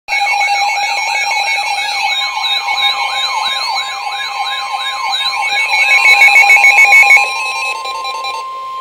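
Electronic weather-alert alarms sounding together: a siren-like tone sweeping up and down about twice a second over steady and rapidly beeping tones, loudest just before seven seconds in. Most of it cuts out between seven and eight and a half seconds in, leaving a single steady alarm tone, the NOAA Weather Radio warning tone that announces a severe thunderstorm warning.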